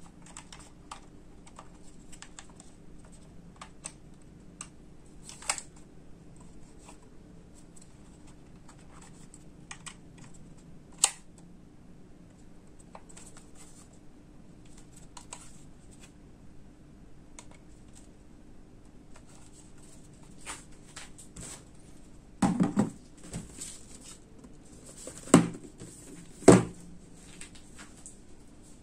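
Small plastic clicks, taps and scrapes from a DJI Mini 2 remote controller and its phone holder being handled and fitted, with a few louder knocks about three-quarters of the way through.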